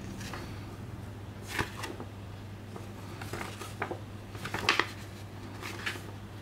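Paper rustling and crackling as a glossy printed booklet is opened and its pages turned by gloved hands: a handful of short crackles, the loudest about three quarters of the way through, over a steady low hum.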